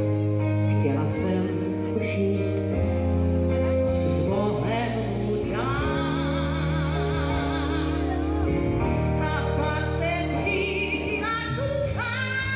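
Pop-rock band playing live with steady bass notes, and a singer holding long wavering notes from about five seconds in.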